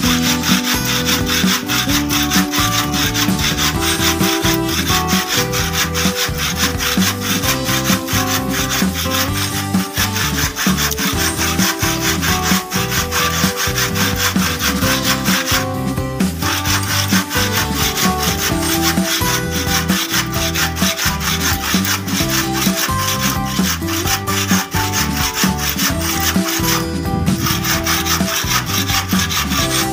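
Handsaw cutting lengthwise through a lightweight aerated concrete (hebel) block in steady back-and-forth strokes, the teeth rasping through the soft, gritty block to split off a thin slab.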